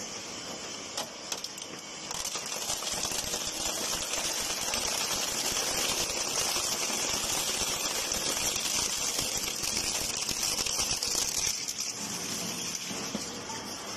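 Industrial shredder breaking up material: a dense, steady crackle and clatter of many small impacts, growing a little louder about two seconds in.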